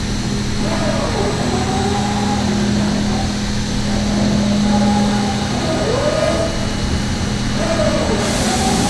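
DMG DMU65 monoBLOCK five-axis machining centre running while milling an impeller. A steady hum sits under a whine that glides up and down in pitch every couple of seconds as the axes move through the cut. A hiss comes in near the end.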